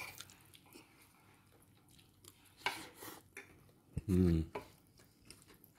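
Metal spoon scraping and clicking as it scoops up rujak from a paper wrapping, in scattered light strokes. A short murmur of a voice about four seconds in.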